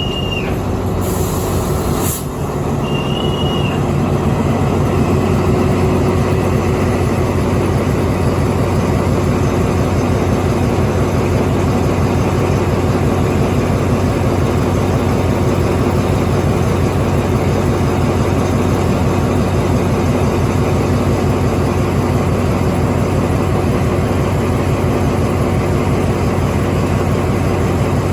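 Diesel train engine running with a steady low hum, with two short high squeals in the first few seconds.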